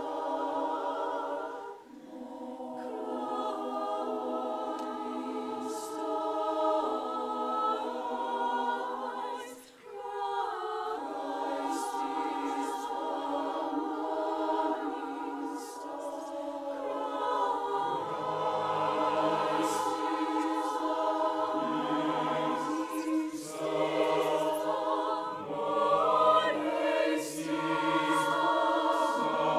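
Mixed choir of men's and women's voices singing held chords in phrases, with brief breaths between phrases about 2 and 10 seconds in. About 18 seconds in, a lower part comes in beneath the upper voices in short repeated notes.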